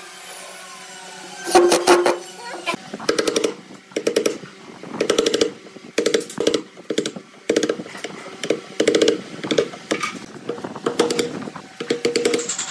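Wooden mallet striking a steel chisel in quick bursts of rapid taps, chopping out a shallow rectangular recess in the edge of a wooden cabinet side. A louder, longer burst comes about two seconds in, before the tapping settles into its rhythm.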